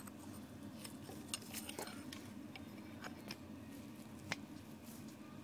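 Scattered sharp metallic clicks and clinks, several over a few seconds, over a steady low hum.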